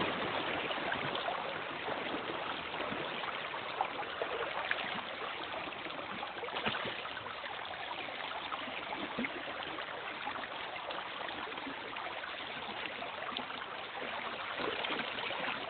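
River current flowing steadily over a rippled, shallow stretch, a constant rush of moving water with a few small splashy ticks.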